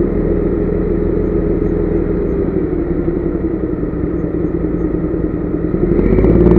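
Heavy diesel truck engine running steadily, growing louder near the end.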